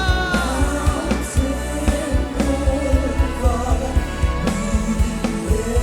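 African gospel worship song with a steady drum beat, bass and keyboard, and held singing between the lead's call lines.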